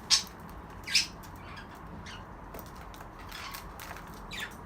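Budgerigars calling: two loud, sharp squawks in the first second, then fainter chirps scattered through the rest.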